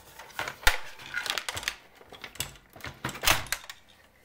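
Plastic case of a Panasonic RX-FS470 cassette boombox being handled and pulled apart after its screws are out: a string of hard plastic clicks and knocks, the loudest about two-thirds of a second in and another strong one after three seconds.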